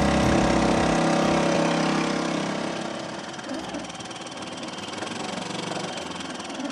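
Small 2-horsepower outboard motor running steadily, then dropping to a quieter, lower running about three seconds in.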